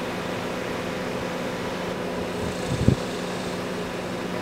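Steady hum of an idling car heard from inside the cabin, with a brief low thump just before three seconds in.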